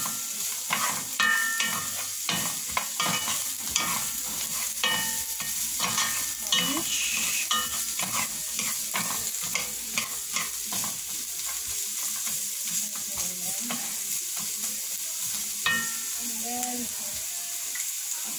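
Carrot sticks sizzling in oil in a frying pan, with a wooden spoon scraping and knocking against the pan as they are stirred. The spoon strokes are frequent through the first ten seconds or so, then only now and then, leaving the steady sizzle.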